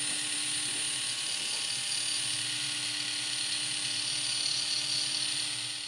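Small toy electric motor and plastic gears of a K'NEX wheel lift running, a steady whirr with a constant high whine, fading out near the end.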